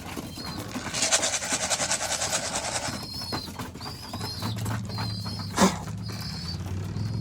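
Pigeons in a loft cooing, with a rapid fluttering rustle early on and repeated short high chirps after it. A low steady hum joins about halfway through.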